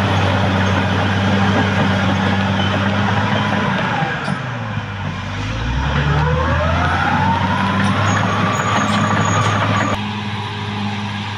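Caterpillar D6R XL bulldozer's diesel engine running under load. About four seconds in the engine drops in pitch, then climbs steadily back up over the next few seconds, and the noise eases a little near the end.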